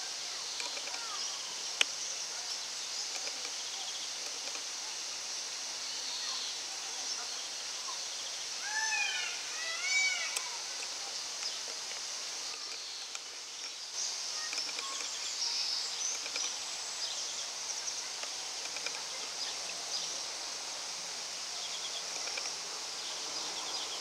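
Outdoor ambience with a steady high chorus of birds chirping. A short run of high, arching calls comes around nine to ten seconds in, and there is one sharp click about two seconds in.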